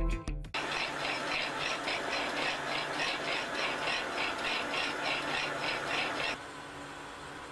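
A roller mill for orange pigment paste running with a rhythmic high squeal, about three squeaks a second, over a steady machine noise. The squealing cuts off a little before the end, leaving a low steady hum.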